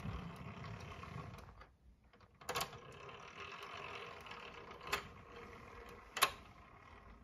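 Steering mechanism of a metal Meccano model car being worked by turning its steering wheel: a steady rattling of metal parts, with three sharp clicks, the loudest about six seconds in.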